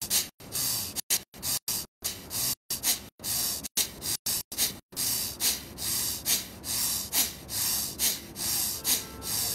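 Forceful rhythmic breathing of a pranayama exercise: short hissing breaths about two to three a second, each exhalation pushed out sharply with a jerk.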